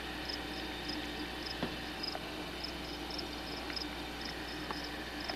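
Insects chirping in the swamp: short high chirps repeating irregularly a few times a second over a steady low hum.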